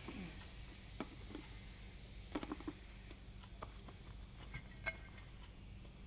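Quiet room tone with a few soft, scattered taps and knocks.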